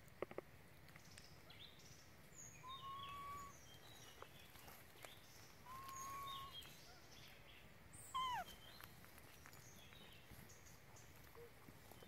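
Baby long-tailed macaque giving thin, whistle-like coo calls: two level calls about three seconds apart, then a louder one that slides down in pitch about eight seconds in.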